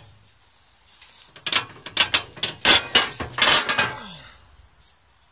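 A metal camper entry step being worked by hand. A fast run of sharp metallic clicks and clatters starts about a second in and lasts roughly three seconds.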